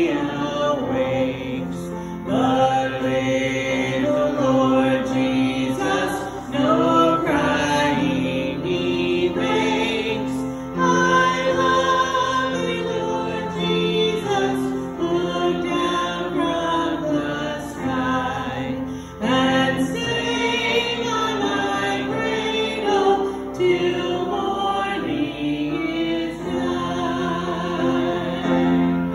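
Church congregation singing a slow Christmas carol together, sustained notes moving from one to the next.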